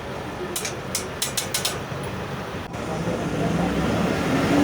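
Bus drivetrain with a MAN D0834 4.6-litre four-cylinder diesel and a reconditioned ZF 6S-1010 gearbox running, its low growl growing louder from about three seconds in as it pulls harder. The growl is the different note the owner puts down to the reconditioned gearbox. A handful of sharp clicks come in the first two seconds.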